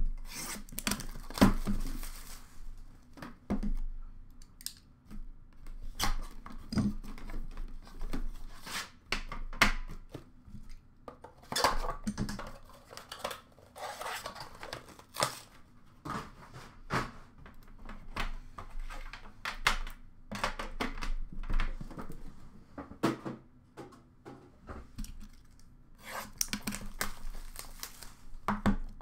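Plastic wrap being cut and torn off a hockey card tin, in many separate scraping, tearing strokes, with sharp clicks and rubbing as the tin and the packaging inside are handled.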